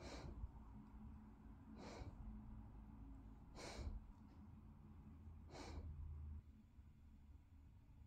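Faint breathing of a drowsy Bernese Mountain Dog through its nose: four soft breaths about two seconds apart, over a low steady hum.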